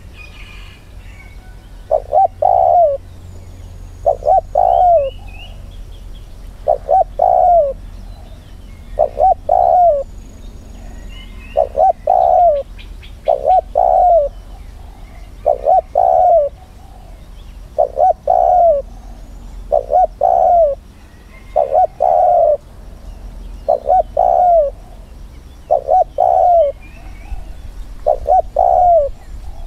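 Spotted dove cooing: a short phrase of a few low notes, repeated about every two seconds. It is the caged decoy calling to lure wild doves to the trap. Faint chirps of small birds sound above it.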